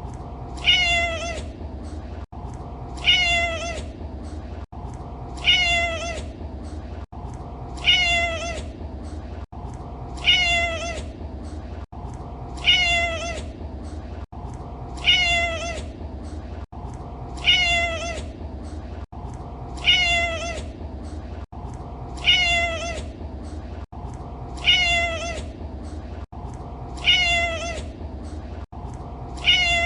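A domestic cat's meow, the same single call repeated about every two and a half seconds as a loop, over a steady low hum.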